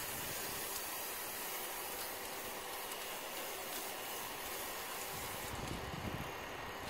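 Paint spray hissing steadily as the bookcase is sprayed, the hiss dropping away about five and a half seconds in. Low rumbling near the end.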